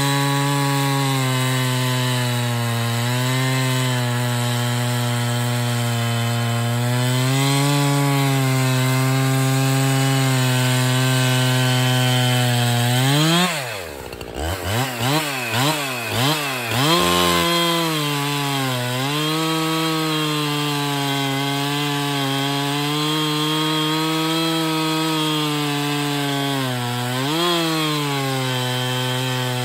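Husqvarna 365 Special two-stroke chainsaw cutting wood at full throttle, fitted with an Oregon square-ground chain. About halfway through, the engine note drops, then rises and falls about five times before the saw settles back into a steady cut.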